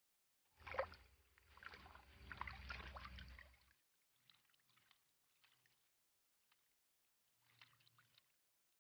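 Water sloshing and splashing in a black plastic gold pan as it is swirled and dipped in a river to wash the sand and gravel. There is one longer run of sloshing lasting about three seconds, then a few short splashes.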